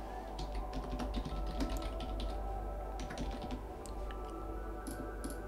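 Typing on a computer keyboard: a scattered run of key clicks, with two sharper clicks near the end, over a steady low hum and a faint drone of held tones.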